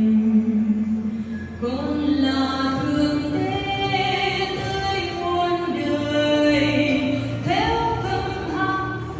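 Church choir of mixed voices singing a slow hymn in long held notes, heard through the church's loudspeaker system. New phrases come in about a second and a half in and again near the end.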